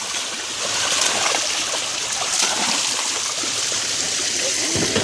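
Steady rush and splashing of water as a net full of live catfish is tipped into shallow lake water, the fish splashing at the surface, with a couple of sharper splashes about one and two and a half seconds in.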